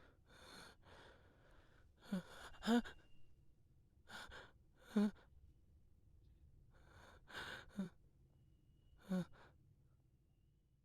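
A person breathing heavily, out of breath as if from running: short, hard breaths, several with a voiced gasp, coming mostly in pairs every two to three seconds.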